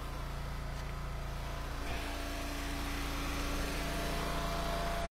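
Small gas engine of an Eastonmade Ultra hydraulic log splitter running steadily.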